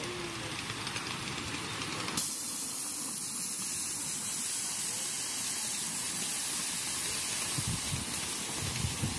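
A ride-on miniature live-steam locomotive venting steam: a loud, steady hiss that starts suddenly about two seconds in.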